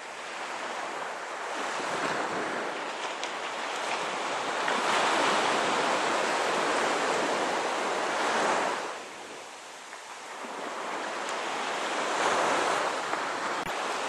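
Surf washing onto a sandy beach: an even rush of wave noise that swells, drops away about nine seconds in, and builds again with the next wave.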